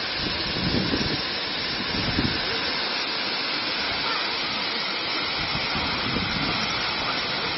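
Waterfall rushing: a steady, even roar of falling water, with brief low rumbles about one and two seconds in.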